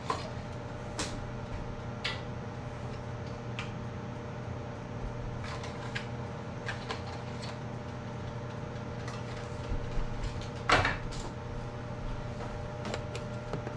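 Scattered light clicks and taps of small kitchen items being handled while canning jar rings are unpacked, with one louder knock about eleven seconds in, over a steady hum.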